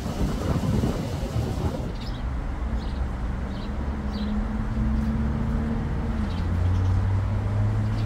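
City traffic noise with a low engine hum that grows louder in the second half. About five faint, short bird chirps come through in the background in the middle of the stretch.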